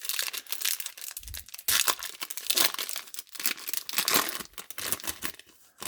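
Foil wrapper of a trading-card pack crinkling and tearing as it is opened, in irregular crackles, with a soft low thump about a second in.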